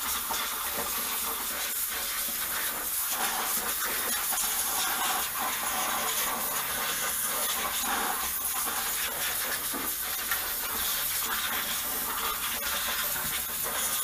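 Compressed air hissing steadily from a long-nozzle blow gun, blasting dust and debris off the top of an engine.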